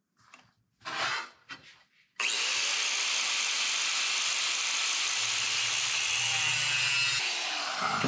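Angle grinder cutting steel angle iron. It starts suddenly about two seconds in after a few short handling clatters, runs loud and steady for about five seconds, then is switched off near the end and spins down with a falling whine.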